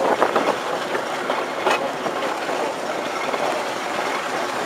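Class 05 diesel shunter on the move, heard from its cab: a steady rumble and rattle of wheels running over the rails, with a few sharp clicks, the loudest about a second and a half in.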